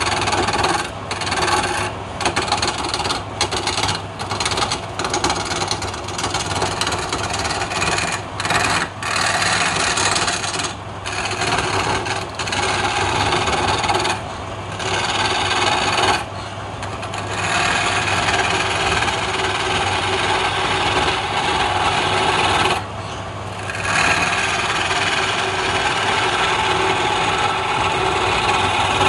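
Wood lathe spinning a palm-wood blank while a hand-held chisel cuts it: a steady scraping cut over the motor's low hum. The cut breaks off briefly many times in the first half as the tool lifts away, then runs longer and unbroken in the second half.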